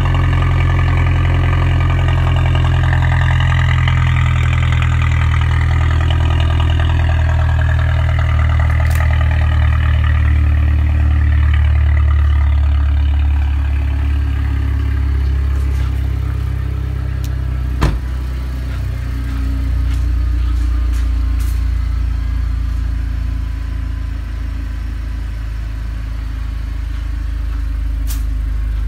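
Mercedes-Benz W204 C-Class AMG engine idling through an ORDexhaust aftermarket race exhaust: a steady, deep exhaust drone. A single sharp click partway through.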